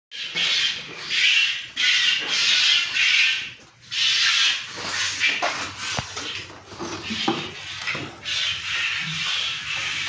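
Cow being milked by hand, the milk squirting into a bucket in rhythmic hissing spurts, roughly one every half second to second. After about four seconds the spurts give way to a few knocks and handling noise.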